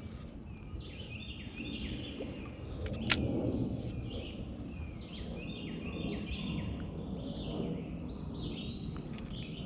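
Birds singing, repeating short high chirping phrases over and over against a steady low outdoor rumble, with a single sharp click about three seconds in.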